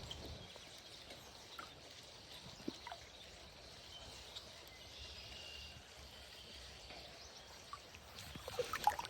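Faint creek ambience: steady flowing, trickling water, with a few soft clicks, most of them near the end.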